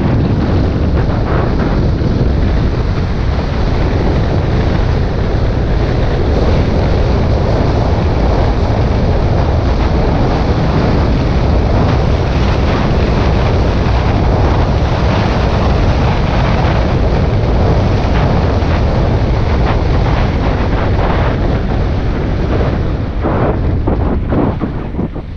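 Wind rushing over a helmet-mounted camera's microphone as a downhill mountain bike rolls fast down a dirt and sand slope, with tyre noise on the loose ground. The rush is steady and loud, dying down near the end as the bike slows.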